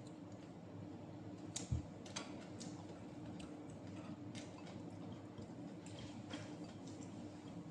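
Faint eating sounds: scattered small clicks and soft squishes as fingers pick apart smoked fish (tinapa) and scoop rice. One low thump comes a little under two seconds in, over a steady low hum.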